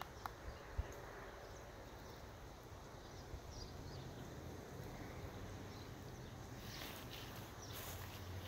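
Quiet outdoor ambience: a faint steady background with a few light clicks in the first second and soft scuffing near the end, typical of someone walking across a yard with a phone camera.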